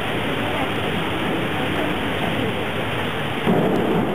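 Steady hiss of an indoor diving-pool arena, with a crowd murmuring. About three and a half seconds in there is a short, louder thump as the diver takes off from the springboard.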